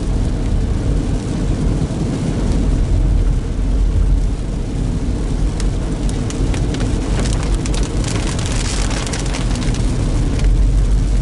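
Steady low road and engine rumble inside a car driving in the rain, with rain hitting the car and wet tyre hiss; a run of sharp ticks and spatter from about six to ten seconds in.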